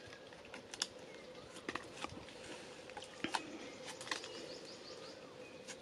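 Scattered light clicks and cracks of bark and twigs under the hands and bare feet of a man climbing down through tree branches. A few faint bird chirps come about four seconds in.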